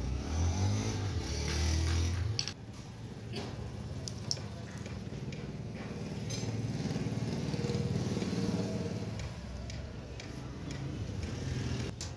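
Hammer tapping a steel chisel against the edge of a stone griddle slab, a few sharp taps, over the low drone of a motor engine that swells twice.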